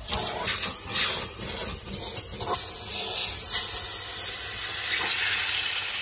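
Numatic Henry cylinder vacuum cleaner running, air hissing through its crevice nozzle as it is drawn along the seam of a leather car seat; the hiss shifts in strength as the nozzle moves.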